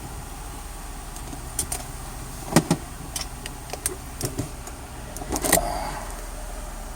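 Car running, heard from inside the cabin as a steady low rumble, with a scatter of irregular clicks and knocks; the two loudest come about two and a half and five and a half seconds in.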